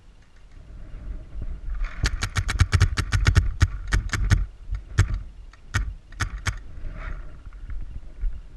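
A Dangerous Power G5 electronic paintball marker fires a rapid string of about twenty shots at roughly eight a second, then a few more single shots, with a whir running beneath the strings of shots.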